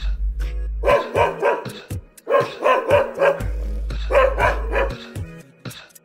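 Dog barking in three quick runs of several barks each, over background music with a deep bass.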